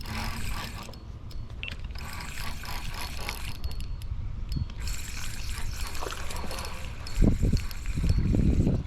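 Fishing reel being cranked with a light mechanical ticking, along with light water splashing. Low thumps near the end.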